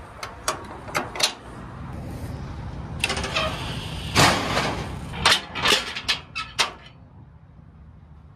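Sharp metallic clanks and rattles from handling the steel decks and tie-down gear of a car-hauler trailer: a few in the first second, then a louder clattering run in the middle, over a steady low rumble.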